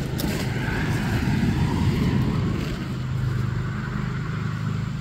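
A steady low motor hum that swells slightly and eases off over the first couple of seconds, with a few brief clicks of the phone being handled at the start.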